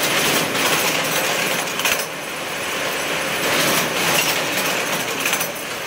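Steady clattering and scraping of bamboo being worked into fish-trap baskets, with irregular sharp clicks throughout.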